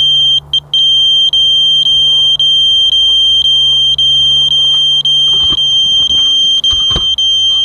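Walkera Rodeo quadcopter's onboard alarm buzzer sounding a loud, steady high-pitched beep, broken by short gaps about twice a second. A couple of handling knocks come near the end as the drone is picked up.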